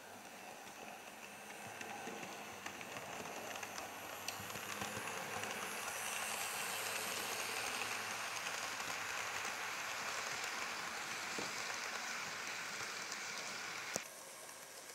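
Model works train rolling past close by on the layout's track: a steady rushing rattle of small wheels on metal rails that builds over the first few seconds, holds, then cuts off abruptly with a click near the end.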